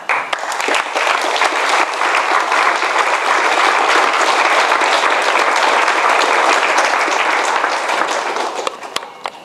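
Audience applauding, starting at once and holding steady, then dying away near the end.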